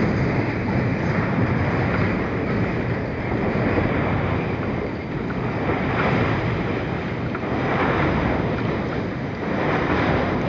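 Wind buffeting the microphone over choppy river water splashing around a kayak's bow. The noise is steady, swelling and easing every couple of seconds.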